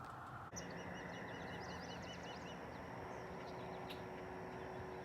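Birds calling over a steady background hiss, starting with a quick run of about ten repeated high notes a little after half a second in, followed by scattered short chirps.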